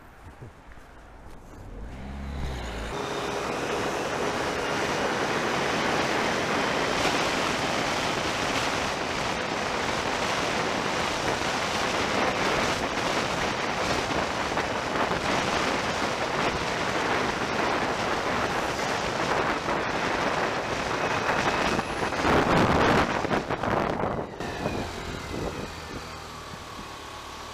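Motorcycle riding on a town road, heard through a helmet-mounted camera as a steady wind roar over the engine. It starts about two seconds in, surges louder near the end, then eases off.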